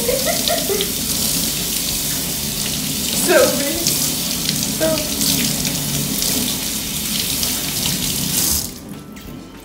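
Kitchen faucet running over a sweet potato as it is rubbed clean by hand, the stream splashing into a stainless steel sink. The water shuts off suddenly near the end.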